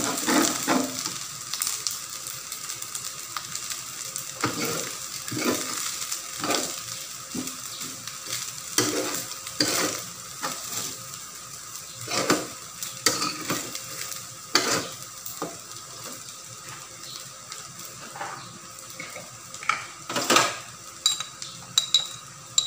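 Rice frying in a stainless-steel pan with a steady sizzle while a metal spatula stirs and tosses it, scraping and knocking against the pan irregularly every second or two as the salt is mixed in.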